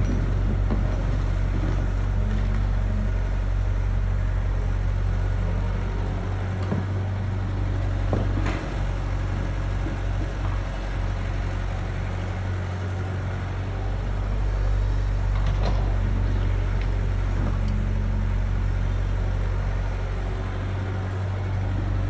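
Excavator engine running steadily at a low drone, easing off a little midway, with a couple of sharp clanks.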